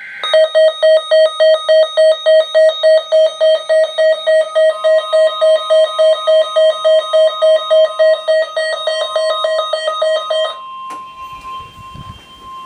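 Weather alert radio sounding a severe thunderstorm warning: a loud alarm beeping about three times a second, which stops suddenly near the end. From about halfway a steady single-pitch tone, the weather radio warning alarm tone, sounds beneath the beeps and carries on alone once they stop.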